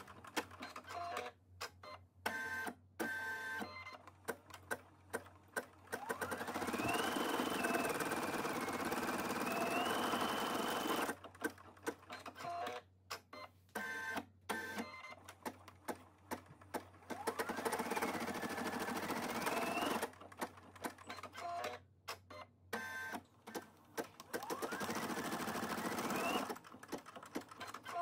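Baby Lock Flourish II single-needle embroidery machine stitching out a design: short bursts of stitching broken by brief pauses, and three longer runs in which the motor's whine rises in pitch, holds, and drops again.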